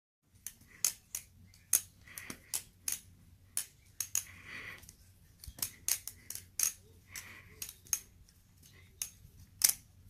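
Vantac Speeder balisong with titanium handles being flipped: sharp metallic clicks and clacks as the handles swing around the pivots and knock together, irregular at roughly two a second, with softer swishes between them.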